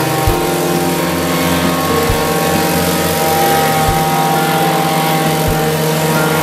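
Gasoline plate compactor's small engine running steadily as the vibrating plate works over a gravel base, with a few short low thumps every second or two.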